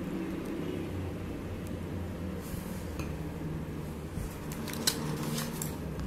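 Quiet handling of a plastic ink bottle and a small paintbrush: a few faint clicks and a soft scrape, then a sharper tick about five seconds in, over a low steady hum.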